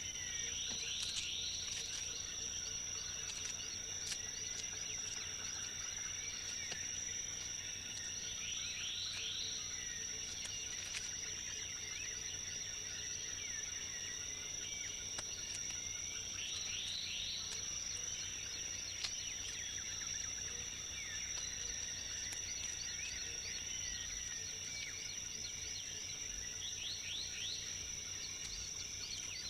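Tropical rainforest ambience: a constant high-pitched insect drone, with bursts of quick rising chirps about every eight seconds and scattered short calls.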